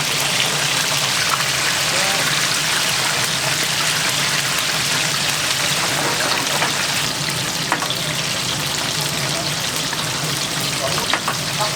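Chicken pieces deep-frying in hot oil: a steady sizzle, with a couple of sharp clicks late on.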